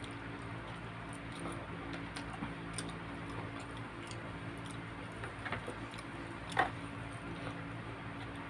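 Hand-eating mukbang mouth sounds: soft clicks and smacks of chewing chicken and rice, with one louder short smack near the middle, over a steady low hum.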